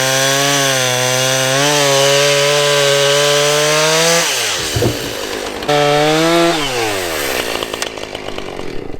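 Husqvarna Rancher 455 two-stroke chainsaw at full throttle cutting through a pine log, its pitch sagging slightly under load. About four seconds in the throttle is released and it drops toward idle, revs briefly once more, then settles back to idle.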